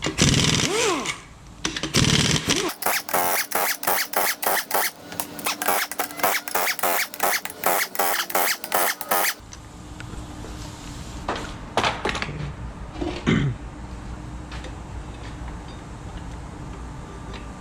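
Tool work on a 5.7L LS1 V8's bottom end to free the crankshaft: loud tool noise at the start, then a fast run of sharp rattling strokes for several seconds, followed by a few metal clanks as parts are handled.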